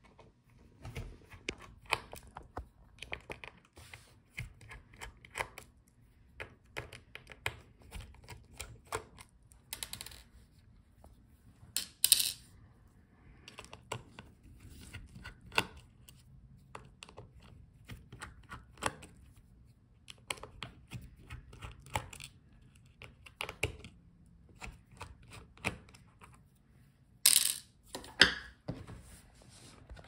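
Small clicks, taps and scrapes of a screwdriver and tiny screws against the metal frame of a laptop as its hinge screws are taken out, with a louder clatter about twelve seconds in and two more near the end.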